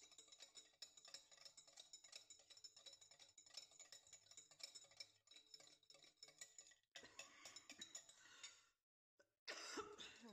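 A metal fork beating eggs and oil in a glass bowl: faint, rapid clicks and ticks of the fork against the glass. The clicking breaks off for a moment about nine seconds in.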